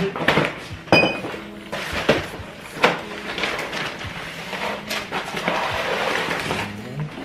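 Groceries being unpacked onto a stone kitchen countertop: boxes and plastic containers set down with scattered knocks, and a sharp clink about a second in that rings briefly. Paper and plastic packaging rustle through the second half.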